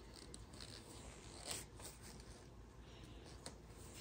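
Faint clicks and scrapes of a metal compression fitting being handled and pushed onto plastic radiant tubing, the most distinct about a second and a half in.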